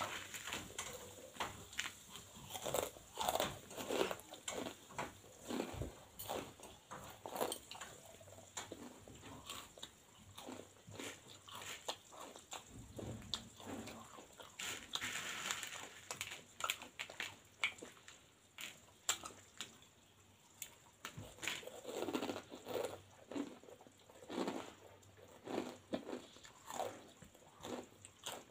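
Crunching and chewing of bhujia, the crisp fried gram-flour noodle snack, as a run of irregular crackly bites.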